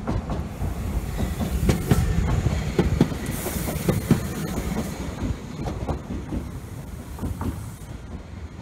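Setagaya Line tram passing close by, its steel wheels clacking irregularly over the rail joints over a low rumble, with a brief high hiss about three seconds in. The sound fades as the tram moves away near the end.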